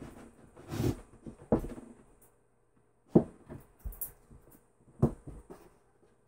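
Particle-board wall cabinet knocking and bumping against the wall and its support board as it is shifted into position by hand: about five separate dull knocks, with a brief near-silent pause between two and three seconds in.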